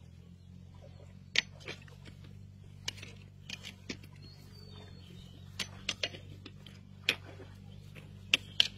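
Hands picking through a fishing net on grass: scattered sharp crackles and taps, about a dozen in all, over a steady low hum.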